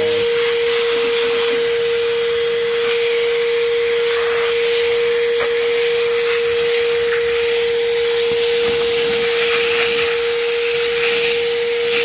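Ridgid 18V cordless 9-gallon wet/dry shop vacuum running at a steady pitch, its motor whine held level, while the crevice nozzle sucks fine granular debris off a plywood board with a rushing hiss.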